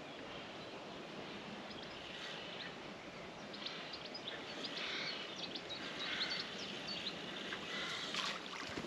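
Steady outdoor background noise with short bird chirps scattered through it.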